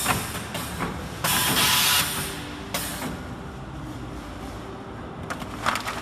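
Multi-lane liquid sachet packing machine running with a steady mechanical hum and sharp clacks. There is a loud burst of hiss about a second in, and a quick cluster of clacks near the end.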